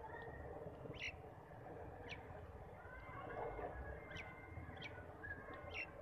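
Birds chirping: short, sharp chirps about once a second, with a few faint thin whistles, over a low steady rumble.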